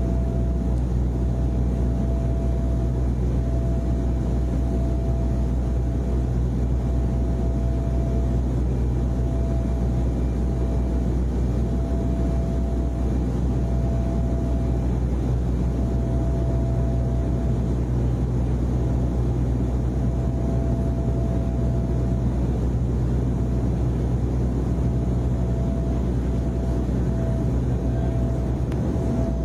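Airliner cabin noise: a steady low drone of engines and cabin air, with a faint higher whine that keeps breaking off and returning.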